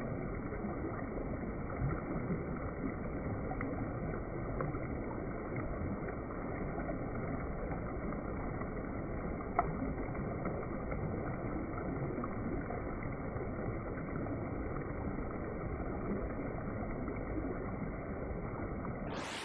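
Small mountain stream trickling and splashing down over rocks, a steady, muffled rush of water.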